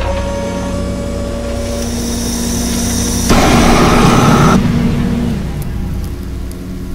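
Science-fiction laser cannon sound effect. A humming charge-up builds with a high whine for about three seconds. Then comes a sudden loud blast and explosion, which fades away over the next two seconds.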